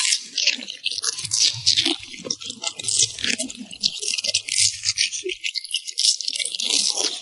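French bulldog chewing and crunching food: a quick, irregular run of crunches and wet clicks.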